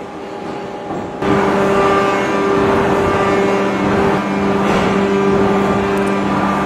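Hydraulic open-die forging press and forging manipulator running: a steady machine whine of several held tones over a noisy hum. It jumps louder about a second in and dips briefly near the middle.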